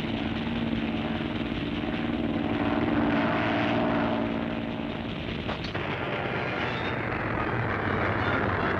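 A steady mechanical drone sound effect that fades out about halfway through.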